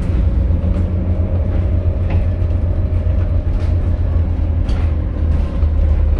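Volvo B7TL double-decker bus, Plaxton President body, heard from inside the saloon while under way: its seven-litre six-cylinder diesel gives a deep, steady rumble with a faint steady whine over it. A few light rattles from the body come through now and then.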